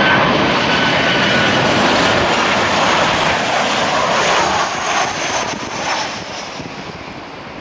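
Boeing 737-800 airliner's CFM56-7B turbofan engines passing low and close on landing approach, gear down: a loud, steady jet rush that fades away from about five seconds in as the aircraft moves off.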